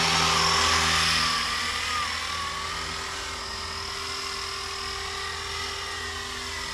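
Blade Eclipse 360 electric RC helicopter flying past, a steady whine of its motor and rotors with a wavering pitch. It grows quieter about two seconds in as it moves away.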